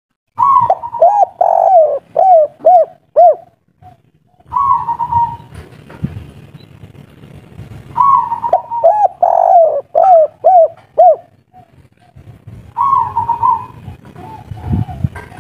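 Spotted dove cooing in repeated phrases. Each phrase opens with a rolled note and, in the longer ones, runs on into a quick string of short falling coos; the phrases come about every four seconds.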